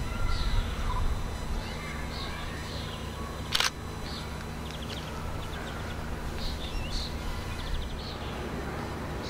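Small birds chirping over and over, short calls about once a second, over a low steady rumble. One sharp click comes about three and a half seconds in.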